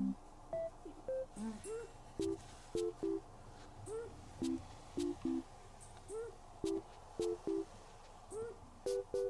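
Background music: a light, simple melody of short, pure-toned notes, about two a second, with small rising-and-falling blips between them.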